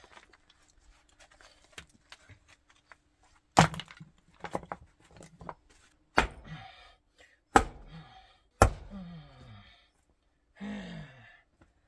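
Light clicks and taps, then four sharp, loud knocks spaced a second or two apart, with short bursts of voice between the later ones.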